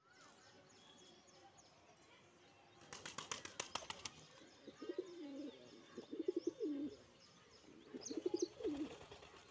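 Male fantail pigeon's wings flapping in a quick run of claps as it flies in and lands, then three low, rolling coos. Small birds chirp faintly in the background.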